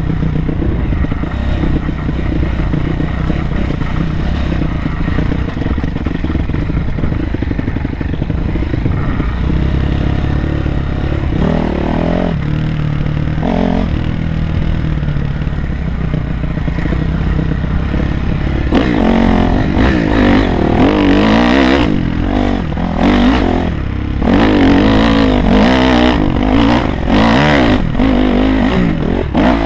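Honda CRF250R's single-cylinder four-stroke engine running under way on a dirt trail. Its note is steady at first, with a couple of short rises around the middle. From about two-thirds of the way in it revs up and down repeatedly with the throttle.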